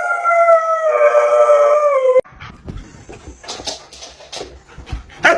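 A dog howling: one long, steady howl that cuts off suddenly about two seconds in, followed by faint rustling and light knocks.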